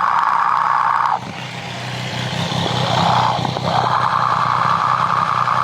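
Triumph 765 three-cylinder engine idling, heard through a mechanic's stethoscope probe on the timing gear area: a loud steady rushing noise over a low hum. The rushing drops away about a second in and comes back a couple of seconds later as the probe is moved.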